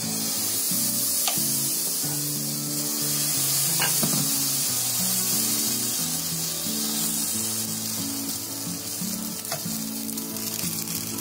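Rice-and-potato amboli batter sizzling on a hot ghee-greased tawa as it is poured and spread with a steel ladle; the sizzle starts suddenly as the batter hits the pan and then holds steady, with a few light ladle clicks. Background music plays underneath.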